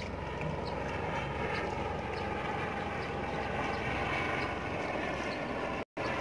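A steady engine drone with a constant pitch, cutting out completely for a split second near the end.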